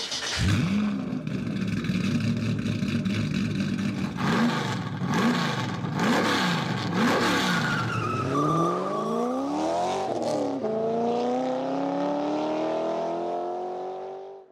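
A racing engine, used as the sound of an animated intro. It runs steadily at first, then is blipped up and down about four times. It then accelerates in a long rising pull, drops once about ten and a half seconds in as it shifts gear, and climbs again, fading out near the end.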